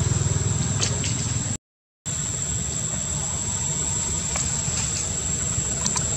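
Steady low engine-like rumble under a constant high-pitched whine, with a few faint ticks; the sound cuts out completely for about half a second around one and a half seconds in.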